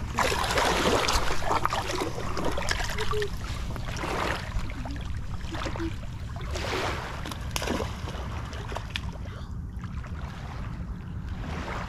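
Water splashing and sloshing as someone wades through shallow water, in several uneven surges, over a steady rumble of wind on the microphone.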